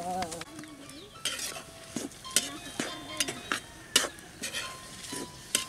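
A metal spatula scrapes and clinks irregularly against a metal wok while leafy greens with red chillies are stir-fried, over a faint sizzle.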